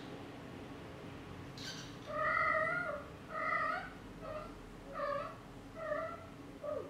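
Adult exotic shorthair mother cat meowing about six times in a row, the first call the longest and loudest, then shorter calls: the anxious calls of a mother cat whose kitten has climbed out of the nest.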